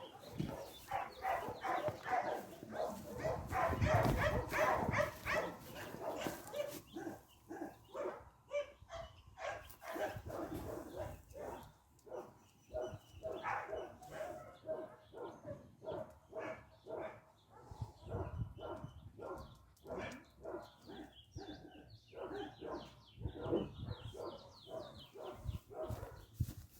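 A dog barking and yipping over and over, two or three barks a second, loudest in the first few seconds.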